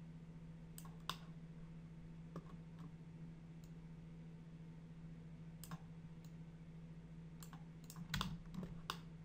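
Scattered clicks of a computer mouse and keyboard, about ten of them, the closest together and loudest near the end, over a steady low hum.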